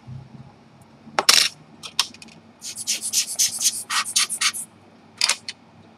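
Latex finger cots rubbing against each other close to the microphone: a few short scratchy rubs, then a quick run of about a dozen between about two and a half and four and a half seconds, and a last one or two just after five seconds.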